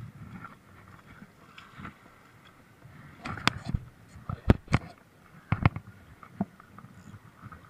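A quick cluster of sharp clicks and knocks close to the microphone, about three to six and a half seconds in: gear or the body-worn camera being handled while fishing from the shore.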